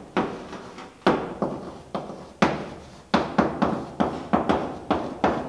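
Chalk writing on a chalkboard: a quick, uneven run of sharp taps, each with a short ring, as the chalk strikes and drags across the board.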